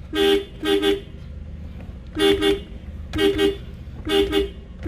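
Toyota Vios car horn sounding in short toots, about eight of them, mostly in quick pairs. The horn now works from the steering-wheel horn pad, with the broken clock spring (spiral cable) soldered and refitted.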